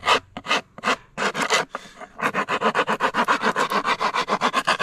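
Wood rasp scraping along the edge of an old wooden canoe paddle blade, taking off the high points left by a knife: a few separate strokes, then from about two seconds in a quick, even run of short rasping strokes.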